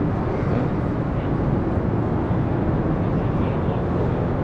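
Steady, loud background noise, mostly low rumble, with no distinct event: the ambient noise of a large aircraft display space.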